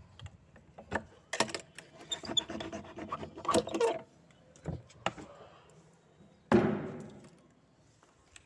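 Padlock and key clicking and rattling against a rusty metal hasp and bolt as the lock is opened and the bolt slid back. About two-thirds of the way through comes one loud knock with a short fading tail as the wooden door is pushed open.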